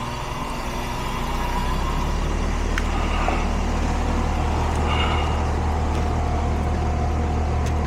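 Central air-conditioning condensing unit starting up and running after being recharged with refrigerant: the compressor and condenser fan come up to speed about a second or two in and settle into a steady hum with a faint whine.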